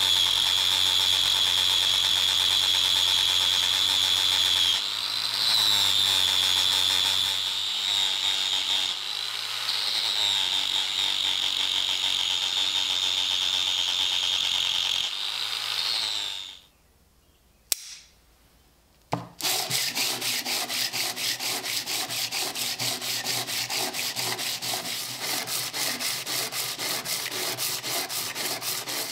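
An angle grinder runs with a steady high whine, grinding the edge of a small steel plate clamped in a vise; its note dips and recovers several times, then it stops at about 16 seconds. After a couple of seconds of near quiet and a click, a piece is rubbed by hand on sandpaper wrapped around a wooden block in quick, even back-and-forth strokes.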